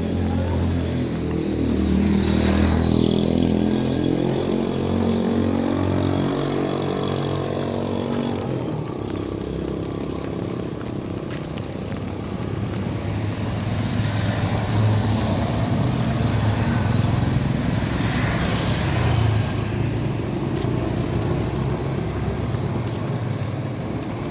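Motor vehicles passing on a wet road in the rain. One engine's note shifts in pitch as it goes by in the first few seconds, and a second vehicle passes about eighteen seconds in, its tyres hissing on the wet surface.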